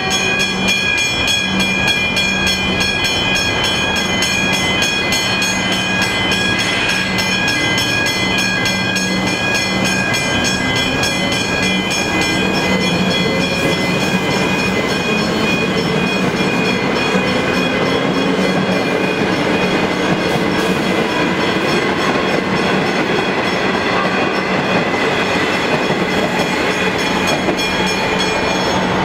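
Westinghouse Hybrid mechanical level-crossing bells ringing with rapid, even strokes, stopping shortly before the end. An electric suburban train passes through the crossing, its motor whine rising in pitch in the middle.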